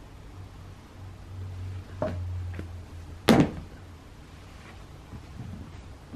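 A few sharp knocks over a low steady hum, the loudest a little over three seconds in and another at the very end.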